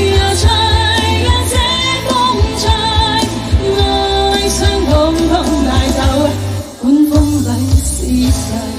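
Chinese pop music with a steady drum beat under a wavering melody line, dipping briefly near the end.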